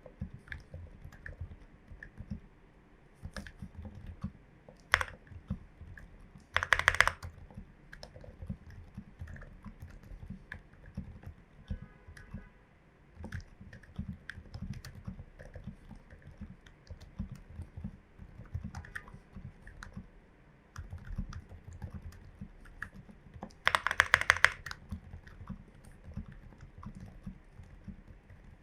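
Typing on a Glorious GMMK Pro mechanical keyboard with lubed, filmed switches and MT3 keycaps: a steady run of soft, low keystrokes. Twice, about seven seconds in and again some seventeen seconds later, a short louder burst of rapid clatter stands out.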